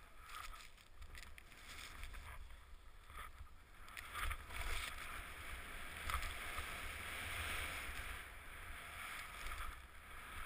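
Skis hissing over snow during a fast descent, swelling and fading with the turns, over the low rumble of wind buffeting a helmet-mounted camera's microphone.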